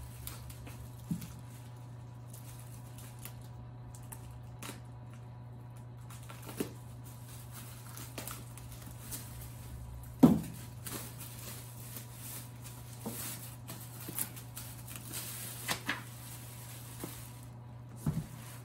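Plastic wrapping rustling and crinkling in short bursts as office-chair parts are unwrapped, with a sharp thump about halfway through, the loudest sound, and another near the end. A steady low hum runs underneath.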